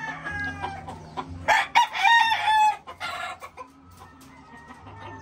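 Gamecock roosters crowing. One crow tails off in the first second, and a louder one starts about a second and a half in and lasts just over a second.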